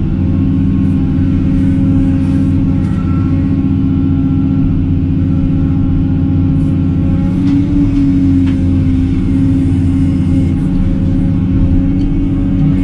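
Excavator's diesel engine running steadily at working speed, with a few faint clicks in the middle.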